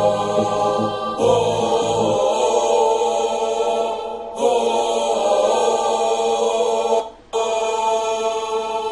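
Wordless choir-style 'aah' backing vocals: a Kontakt human-voice library layered with a real recorded male voice, singing sustained chords that change in phrases about every three seconds, with a brief break about seven seconds in.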